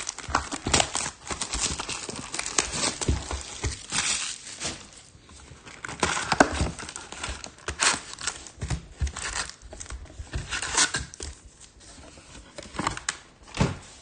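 Trading card box and pack wrapping being torn open and handled, crinkling and tearing in irregular crackles and rustles.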